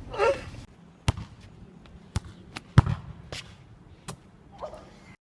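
About five sharp knocks at irregular intervals of under a second, the loudest near the middle, after a brief vocal sound at the start.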